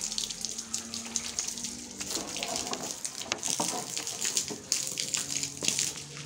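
Water spraying from a small garden hose onto potted plants: a steady hiss with many small splashes.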